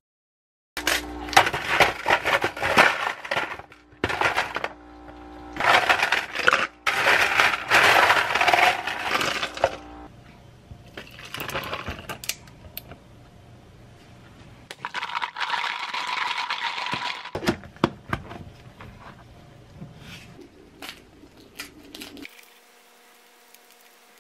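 Ice cubes clattering and clinking into a plastic tumbler in dense rattling bursts, then hot espresso poured over the ice.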